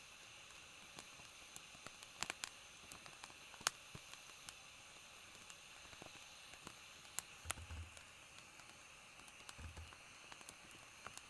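Faint steady hiss with scattered light ticks and taps, and a couple of soft low thumps in the second half.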